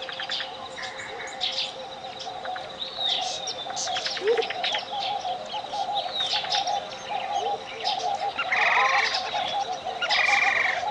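Tropical jungle ambience: many birds chirping, trilling and whistling, with rising and falling calls, over a steady pure tone of 528 Hz. Two louder buzzy calls come near the end.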